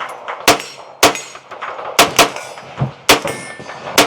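Rimfire gun built from Tandemkross parts fired in a steady string of about seven shots, with the ringing ping of steel targets being hit after several of them.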